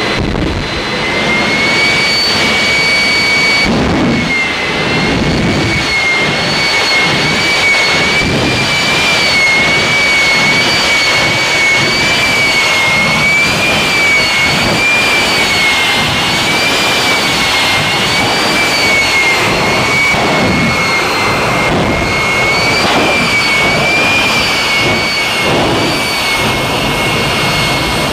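J79 turbojet of a jet-powered semi truck running: a loud, steady rush with a high whine that wavers slowly up and down in pitch.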